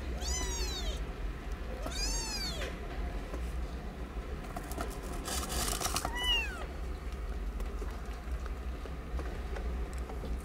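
Newborn kittens mewing while nursing: three thin, high-pitched mews, each rising then falling, about half a second in, at about two seconds and at about six seconds, with a short burst of noise just before the last, over a steady low hum.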